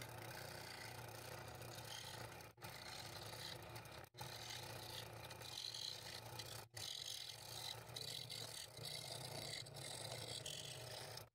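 Scroll saw running steadily, its fine blade cutting through a wooden blank: a low motor hum under a sawing hiss. The sound breaks off abruptly for an instant three times, about two and a half, four and six and a half seconds in.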